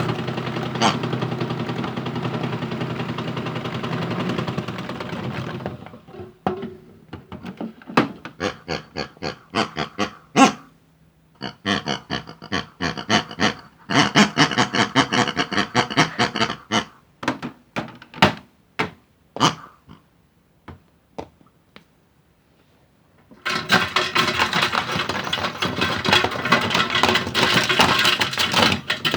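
A modified toy washing machine runs with a steady motor hum for about five seconds, then cuts out. Irregular knocking and clattering follow for about fifteen seconds, as of hard objects banging about in the plastic drum. After a short quiet spell the machine starts up and runs steadily again near the end.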